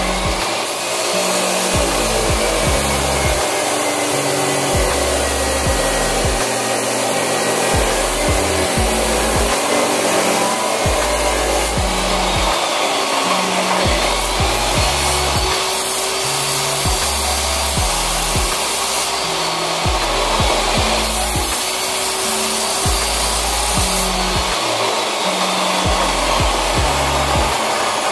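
Electric abrasive cut-off saw running and grinding through a steel rod, a steady loud whine. Its pitch drifts up and down as the disc bites and eases.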